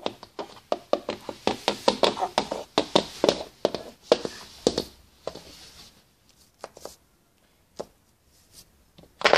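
Plastic Schleich toy horse tapped along a wooden floor like hoofbeats: a quick run of taps for about five seconds, then a few scattered taps.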